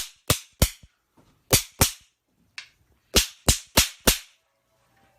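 Toy hand blaster firing caps: about ten sharp pops in quick runs of two to four, with short pauses between the runs.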